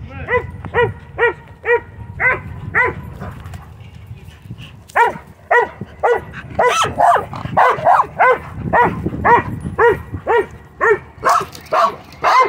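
Dog barking repeatedly at a kite. It barks about twice a second, stops for a couple of seconds about three seconds in, then barks faster and more busily to the end, over a low steady rumble.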